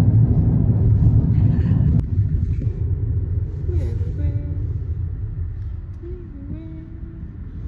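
Steady low road and engine rumble inside a moving car's cabin, with a sharp click about two seconds in, after which the rumble eases somewhat.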